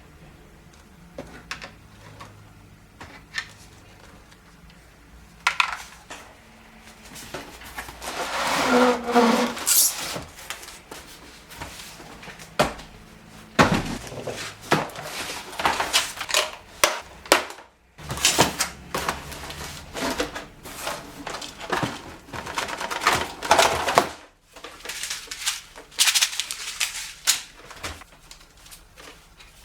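Packaging and hard plastic parts being handled during unboxing: rustling mixed with irregular clicks and sharp knocks, busiest after the first several seconds.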